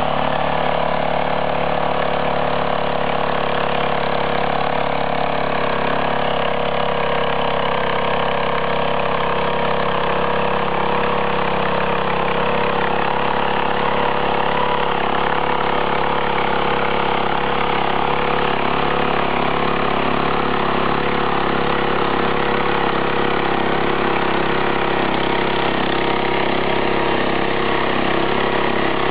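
Small engine of a walk-behind power tiller running steadily while its rotary tines and ridger work through the soil.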